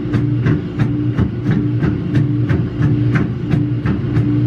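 Mechanical riding horse running: a low motor hum that pulses in time with its rocking, with a sharp click about three times a second.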